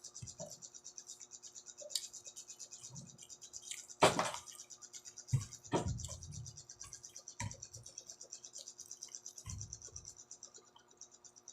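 Close-miked eating: chewing of fried dried fish (tuyo), with scattered sharp clicks and short low knocks, over a steady high hiss. The loudest knock comes about four seconds in.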